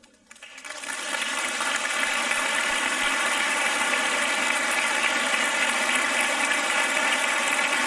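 Congregation applauding, building up over the first second and then holding steady and loud.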